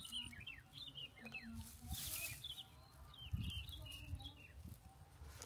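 A quick series of short, high, falling chirps from a small animal, over rustling in grass and a soft low thump about three seconds in.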